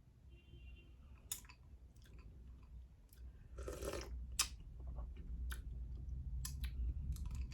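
A person chewing a mouthful of berries and ice in coconut water, with a series of sharp crunches and clicks and a brief noisy burst a little past halfway.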